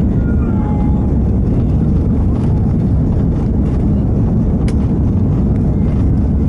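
Steady low roar heard inside the cabin of an Airbus A340-600 climbing just after takeoff: its four Rolls-Royce Trent 500 engines at climb power with the rush of air past the fuselage.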